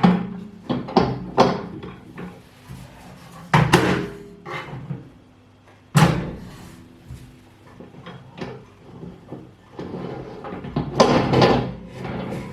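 Knocks and clatters of a microwave's turntable parts being handled and set down inside the oven cavity, as the turntable fails to sit properly on its support. There is a sharp knock about six seconds in, and a flurry of clatter near the end.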